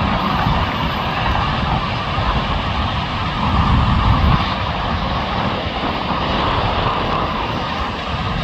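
Steady noise of dense freeway traffic, cars and trucks passing in a continuous stream.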